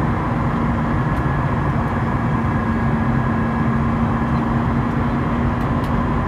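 Steady in-flight cabin noise of an Airbus A320: a rushing airflow and engine drone with a constant low hum and fainter high whines over it.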